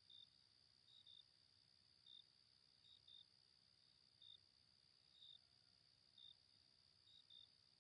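Faint evening cricket chorus: a steady high-pitched trill with short chirps over it, singly or in pairs, every half second to a second.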